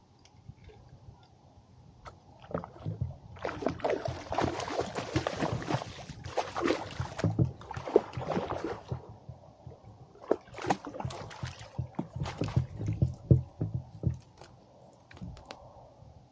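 Water splashing and sloshing beside a small inflatable boat for several seconds, followed by a run of sharp knocks and clatters.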